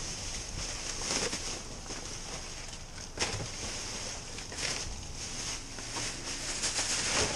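Plastic trash bags and paper rustling and crinkling as they are pulled about and shifted by hand, with several sharper crackles.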